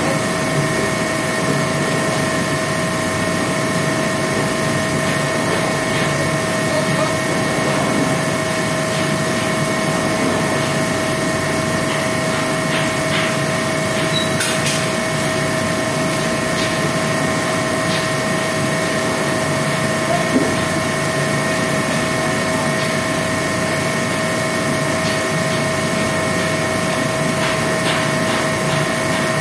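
A machine running steadily, a constant hum with several steady whining tones over an even noise, and a few faint ticks.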